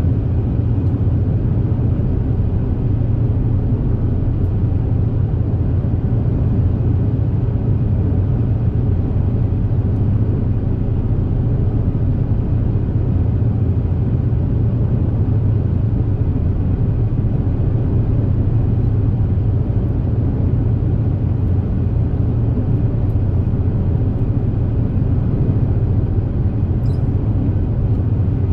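High-speed passenger boat under way, heard from on board: a steady, unbroken low engine drone with a rushing hiss over it.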